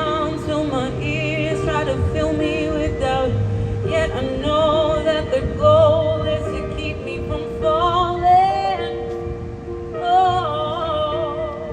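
Live band music: a singer holds and bends long, wavering notes with heavy vibrato, sliding upward about eight seconds in, over sustained keyboard-like chords and held bass notes.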